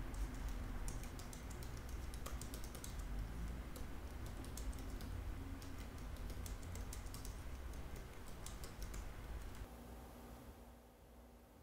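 Typing on a laptop keyboard: a quick, irregular run of key clicks that stops near the end, leaving quiet room tone.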